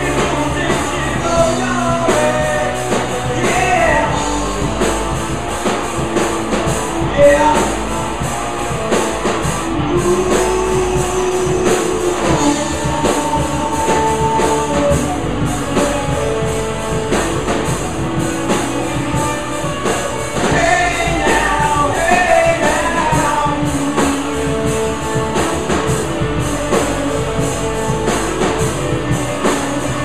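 Live rock band playing loud: drum kit, electric guitars and bass guitar, with a melody line over the top.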